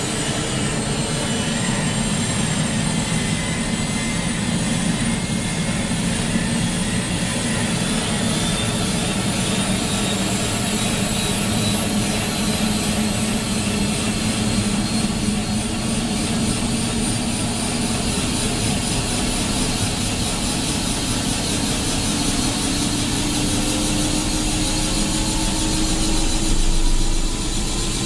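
Eurocopter AS350 B2 Ecureuil's Arriel turboshaft engine and main rotor heard from inside the cabin during start-up, the turbine whine slowly rising in pitch as it spools up. A deeper low rumble comes in near the end.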